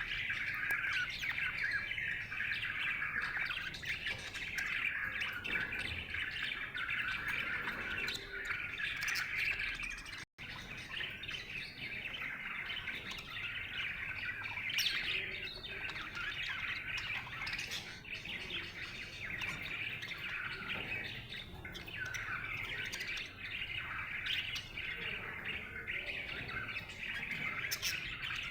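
Budgerigar chirping in a steady, continuous stream of quick high chirps and chatter, with a momentary break about ten seconds in.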